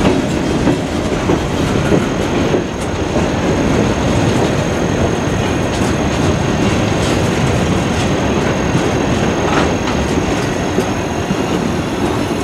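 Freight train tank cars rolling past close by: a steady rumble of steel wheels on rail, with clicks as the wheels pass over rail joints.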